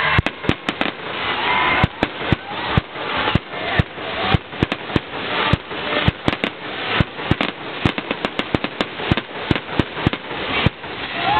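Aerial fireworks shells bursting in a rapid, uneven string of sharp bangs, several a second, as in a fireworks display.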